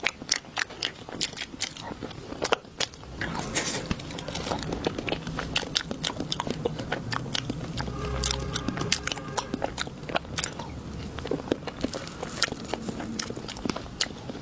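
Close-miked eating: a person biting and chewing food, with many sharp crunching clicks and a denser stretch of chewing through the middle.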